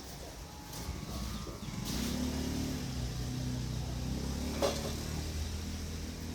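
A motor vehicle's engine running, growing louder about two seconds in, with a single sharp click near the end.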